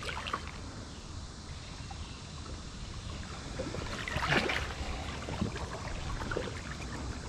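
Legs wading through shallow river water beside a kayak, with sloshing and small splashes and one louder splash about four seconds in.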